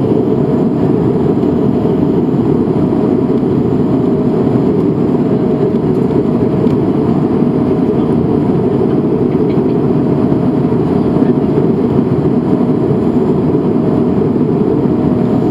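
Steady cabin roar of an Airbus A220-300 in flight, heard inside the cabin by the wing: its Pratt & Whitney PW1500G geared turbofans and the rush of air past the fuselage. A faint humming tone comes and goes above the roar.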